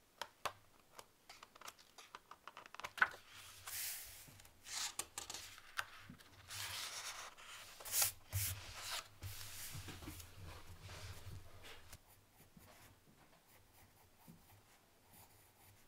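Sketchbook paper being handled: a run of small clicks and taps, then paper rustling and a hand sweeping across the page. Near the end, a pencil scratches faintly on the paper.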